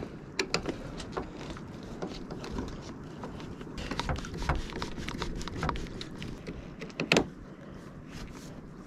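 Plastic fishing rod holder being fitted and clamped onto a stainless steel stern rail: scattered small clicks and knocks of plastic against metal, with one louder knock a little after seven seconds in.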